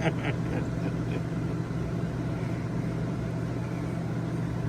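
A steady, low machine hum with no change in pitch.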